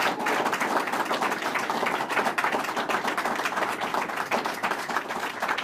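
A small audience applauding: many hands clapping together in a steady patter.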